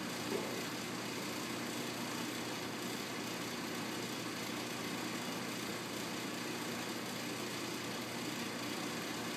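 Steady mechanical hum over a constant hiss, unchanging throughout, with one brief soft bump about a third of a second in.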